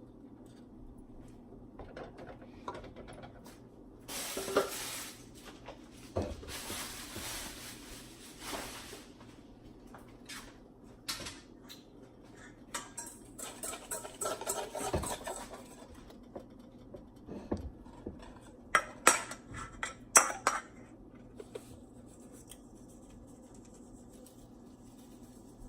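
Kitchen work noises: dishes and utensils clinking, knocking and scraping, with a steady hiss lasting a few seconds near the start and a cluster of sharper knocks later on.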